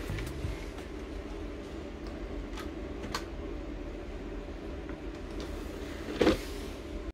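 PC CD-ROM drive tray: a couple of light clicks as a disc is set on the open tray, then, about six seconds in, a loud clunk and brief motor whir as the tray is pushed in and loads. A steady low hum runs underneath.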